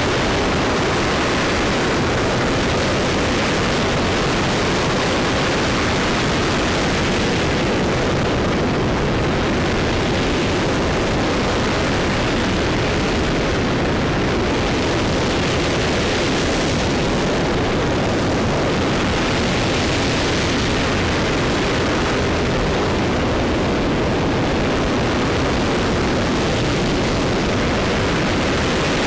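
RS-25 liquid hydrogen/oxygen rocket engine (E2063) firing steadily in a hot-fire test: a continuous, loud rushing noise. Its upper part swells and eases every few seconds.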